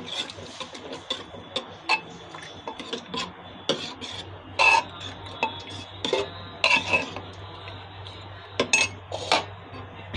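Metal spoon stirring thick cooked dried peas in a pressure cooker pot, clinking and scraping against the metal sides at irregular moments, with a few louder knocks.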